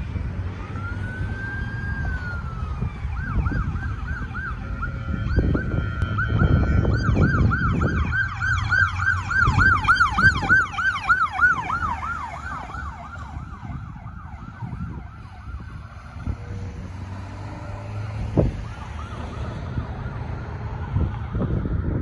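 Ambulance siren on an emergency run: a slow wail at first, then after a few seconds a fast yelp that grows loudest as the ambulance passes close, fades away, and comes back faintly near the end. Road traffic rumbles underneath.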